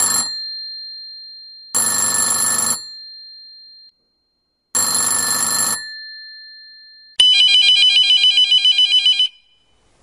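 Old landline telephone ringing: two rings of about a second each, the bell tone ringing on and fading after each. About seven seconds in, a different, warbling electronic-style phone ring trills for about two seconds.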